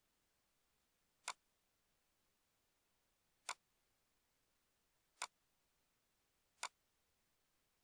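Four single computer mouse clicks, spaced about one and a half to two seconds apart, against near silence.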